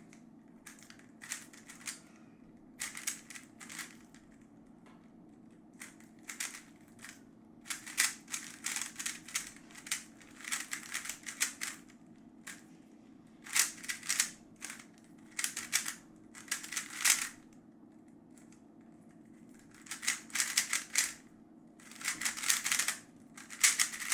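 X-Man Tornado V3 3x3 speedcube being turned fast in a timed solve: runs of rapid plastic clicking and clattering from the layer turns, broken by short pauses of a second or two between sequences.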